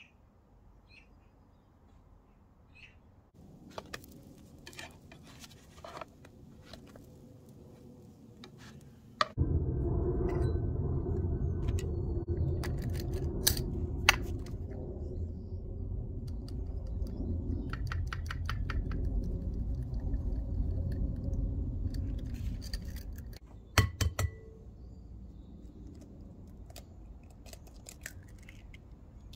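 Scattered light clinks and taps of kitchen utensils and a glass mixing bowl. About nine seconds in, a loud, steady low rumble starts, runs for about fourteen seconds under more taps, and fades out, followed by two sharp clicks.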